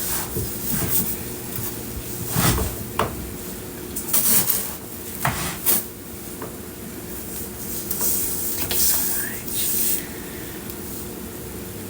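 Irregular rubbing and scraping close to the microphone, with a few light knocks and clicks.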